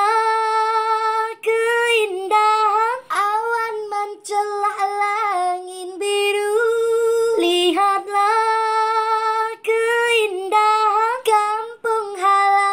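A high solo voice singing a slow, unaccompanied melody: long held notes that bend in pitch, broken by short pauses for breath.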